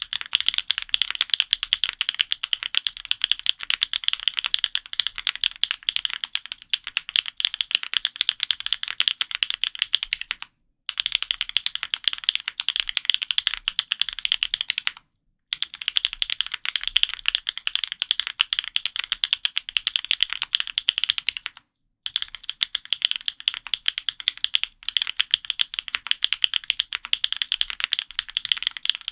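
Fast, continuous typing on a custom F1-8X mechanical keyboard with Krytox 205g0-lubed Gateron Raw switches, GMK keycaps, an aluminium plate and foam-damped case. A dense run of clicking keystrokes, broken three times by brief silent gaps.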